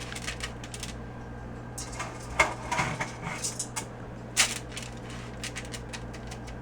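Kitchen handling sounds as cantaloupe seeds are moved from a colander to a baking pan: irregular light clicks and knocks, with two louder knocks about two and a half and four and a half seconds in.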